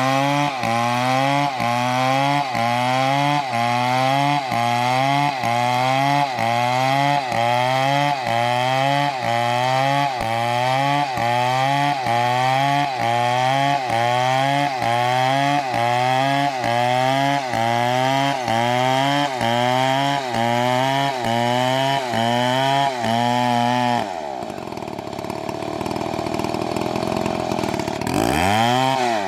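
Two-stroke chainsaw cutting wood under load, its engine pitch sagging and climbing again about once a second in a regular rhythm. About 24 seconds in it falls to a quieter, steadier running sound, then revs up and back down once near the end.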